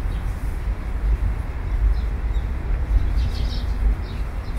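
Outdoor ambience: a steady low rumble with a few short high chirps, about two seconds in and again around three and a half seconds.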